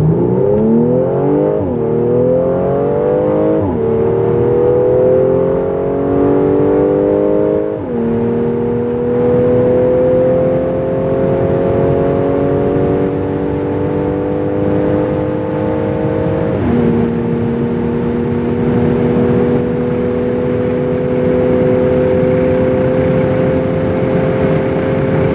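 Mercedes-Benz C450 AMG 4Matic's 3.0-litre twin-turbo V6 accelerating at full throttle from a standstill, heard inside the cabin. The engine note climbs through the gears, and the automatic gearbox upshifts four times, each time dropping the pitch. The shifts come about 2, 4 and 8 seconds in, then the last at about 17 seconds, after which the note climbs slowly at high speed.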